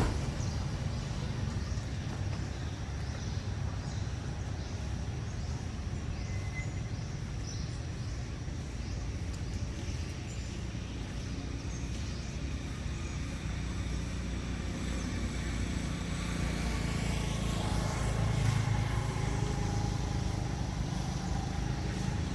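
Steady low rumble of road traffic, with a motor vehicle passing louder near the end, its engine note rising and then falling away.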